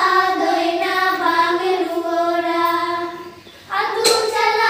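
Young girls singing together, a held, chant-like melody that breaks off briefly about three and a half seconds in and then starts again, with one sharp click just after the restart.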